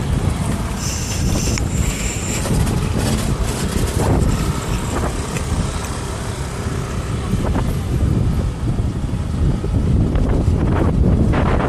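Wind buffeting the microphone of an Insta360 X3 360 camera carried on a moving e-bike: a steady, loud low rumble.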